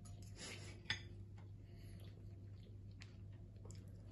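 A fork cutting through a pancake and clicking once sharply against the plate about a second in, then a few faint cutlery clicks, over a low steady hum.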